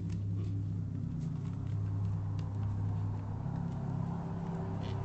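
Steady low hum with a few faint clicks, picked up by a home security camera's microphone.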